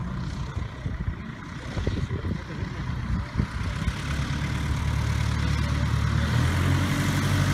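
A light aircraft's piston engine and propeller running at low taxi power. The engine becomes steady about four seconds in and grows louder as the plane comes closer.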